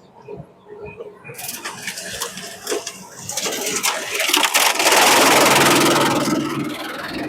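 Bamboo shredder machine at work: dense crackling and grinding with many sharp cracks, building from about a second and a half in to a loud peak around five seconds, then easing off.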